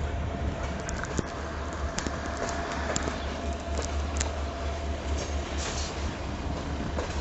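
Train of CFR passenger coaches rolling past, a steady low rumble with irregular clicks and knocks of wheels over rail joints and points, and a faint steady whine.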